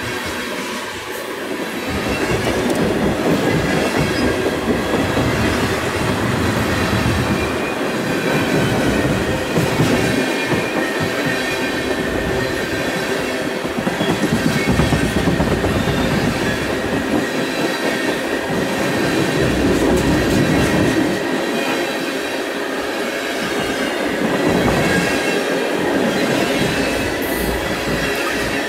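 Freight train of tank cars rolling past close by: steel wheels rumbling and clattering over the rails, swelling and easing as the cars go by, with a thin high squeal from the wheels.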